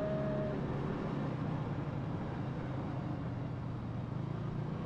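Motor vehicle running steadily: a low, even engine hum with road noise.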